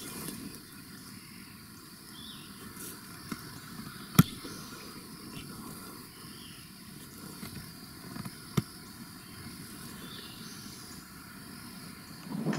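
Two sharp shots from a .25 calibre Umarex Origin PCP air rifle, about four seconds apart, over a faint steady chorus of insects.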